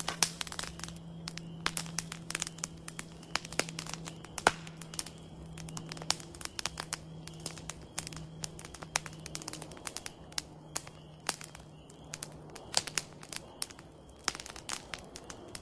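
Wood campfire crackling, with frequent irregular sharp pops and snaps.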